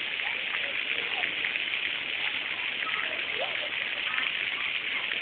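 Waterfall rushing steadily, with faint voices now and then over it.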